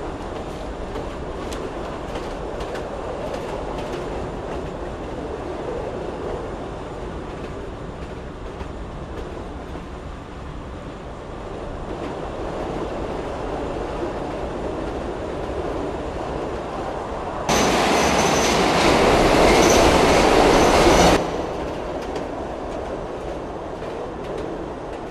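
Metro train running, a steady rumble and rattle of wheels on the track. About two-thirds of the way through, a much louder rushing noise cuts in abruptly for around four seconds and cuts off just as suddenly.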